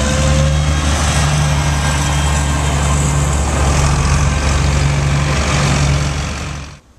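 Vintage Oliver and John Deere farm tractor engines running as the tractors drive past one after another, a steady engine drone with a low hum. It cuts off suddenly near the end.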